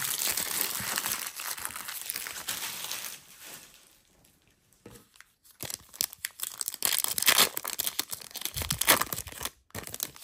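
Crinkling of discarded foil card-pack wrappers being gathered up, then, after a short lull, a Topps Chrome baseball card pack being torn open, with crinkling and tearing that is loudest near the end.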